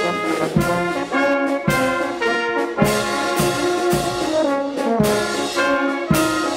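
Brass band playing a tune of held notes over a steady beat of about two thumps a second.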